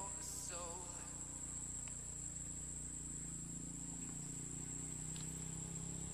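A steady, high-pitched insect trill held on one pitch, over a low even rumble.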